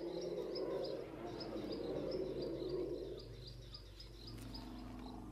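Field ambience of the bush: a short high chirp repeating about four times a second, over a low rushing noise that fades about three seconds in.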